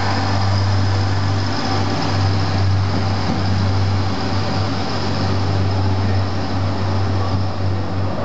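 CAF 29000-class diesel multiple unit pulling away from the platform, its underfloor diesel engines running with a steady low hum over a rumble.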